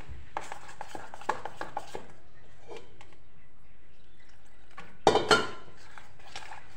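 Besan batter being mixed by hand and spoon in a stainless steel bowl: a run of short clicks and wet squelches, then a louder clatter about five seconds in.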